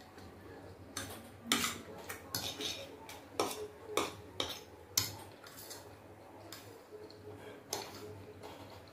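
Metal fork clinking and scraping against a ceramic plate while cutting chicken and gathering spaghetti, in a string of irregular sharp taps.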